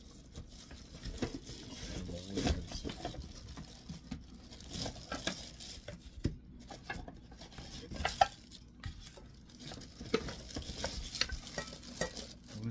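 Clear plastic bag crinkling and rustling as it is pulled off a nonstick pot, with scattered small clicks and knocks of the cookware and one sharper knock about eight seconds in.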